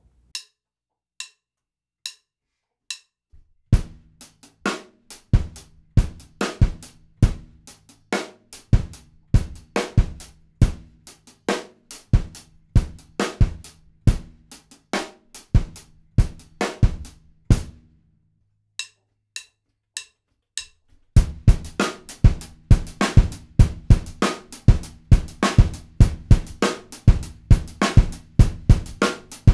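Drum kit playing a funk groove exercise: sixteenth notes on the bass drum under a hi-hat pattern. It runs at 70 bpm after four count-in clicks, stops, and after four quicker clicks starts again at 100 bpm.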